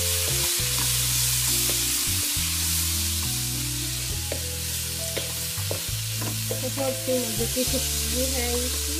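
Chopped vegetables sizzling in a hot wok as they are stir-fried with a wooden spatula, which now and then clicks and scrapes against the pan. Low background music plays underneath.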